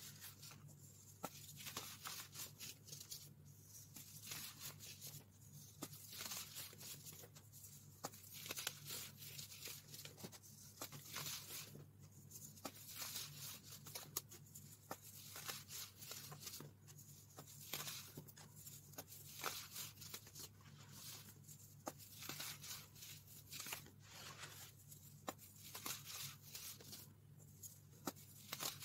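Fingers crumbling and rubbing loose baking soda powder: irregular soft, crunchy scrunches with small crackles, over a faint steady low hum.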